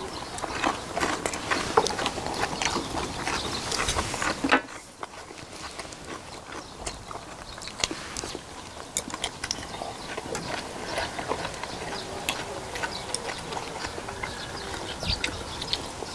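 Close-up eating sounds of several people chewing and smacking their lips over jokbal (boiled pig's trotters), with small clicks of chopsticks. The sound drops quieter about four and a half seconds in.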